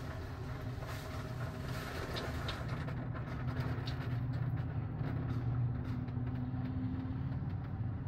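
Touch-free automatic car wash working over the car, heard from inside the cabin: a steady low rumble of spray and machinery on the body, with the hissier top end fading about three seconds in.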